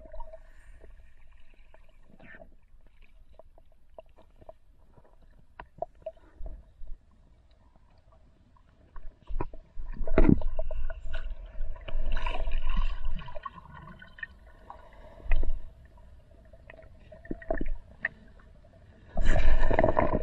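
Muffled underwater sound in a river: scattered clicks and knocks over a faint steady hum, then louder rumbling and sloshing of water and movement from about halfway through.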